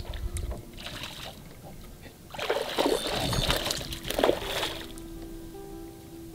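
A hooked fish thrashing and jumping at the water surface: a short splash about a second in, then a longer, louder burst of splashing from about two and a half to nearly five seconds in. Background music with held notes plays underneath.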